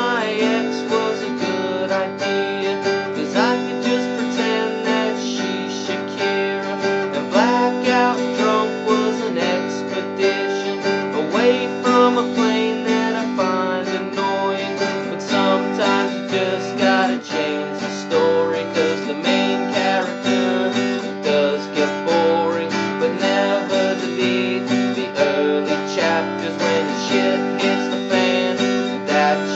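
Music led by a strummed acoustic guitar, keeping a steady rhythm, with a few notes sliding up in pitch.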